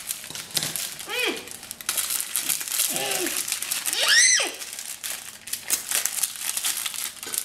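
Foil Oreo cookie wrappers crinkling and crackling as the cookies inside are crushed and the packets squeezed and handled. Three short wordless vocal sounds cut in, the loudest a rising-then-falling one about four seconds in.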